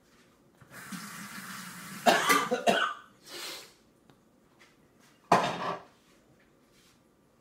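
Coughing: a breathy rasp leads into a rough fit of coughs about two seconds in, a softer cough a second later, and one more sharp cough a little after five seconds.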